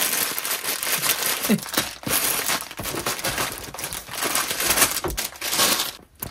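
Sealed plastic bags of Lego pieces crinkling as they are handled, with paper instruction booklets and pamphlets shuffled, in a continuous crackle with short pauses.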